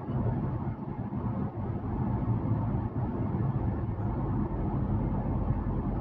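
Steady low rumble of a car on the road, engine and tyre noise together, with no sudden changes.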